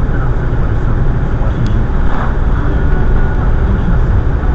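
Steady engine and tyre rumble of a moving car, heard from inside the cabin by a windscreen dashcam. A short tick sounds about a second and a half in.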